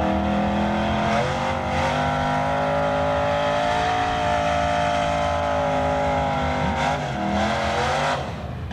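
Drag-racing Fox-body Ford Mustang's engine held at high revs for a burnout, its rear tyres spinning on the strip. The engine note stays steady for several seconds, then changes and drops off about eight seconds in.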